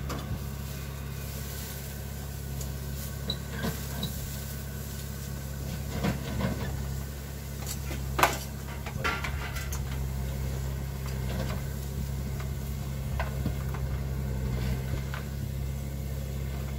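A steady low mechanical hum, like an idling engine, with scattered light clicks and knocks and one sharper clack about eight seconds in.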